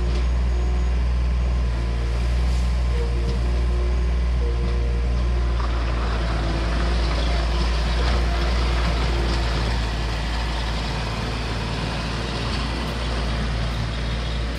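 Bobcat skid-steer loader's engine running steadily as the machine turns and drives away, a little quieter after about ten seconds.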